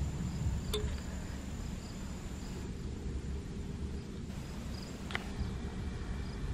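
Low rumble of a departing Embraer E175 twin-jet airliner receding into the distance, under a steady high insect drone with chirps repeating about every half second. Two short clicks, one about a second in and one about five seconds in.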